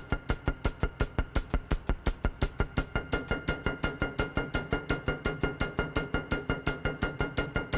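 Background music built on a fast, even percussive beat of about five or six clicks a second, over a held high tone.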